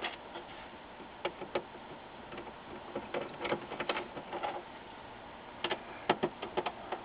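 Phillips screwdriver turning screws out of a plastic LCD monitor back: faint, scattered clicks and scrapes in short clusters.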